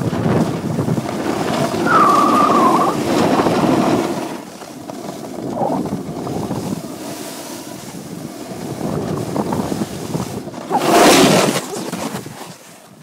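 Wind rushing over the microphone, mixed with the hiss of sliding over snow while moving down a ski run. About eleven seconds in there is a louder burst of noise, and then it quiets.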